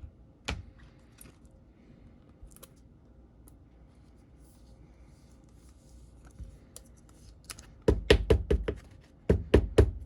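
Trading cards and packs being handled on a table: a single sharp click about half a second in, then two quick runs of sharp knocks near the end.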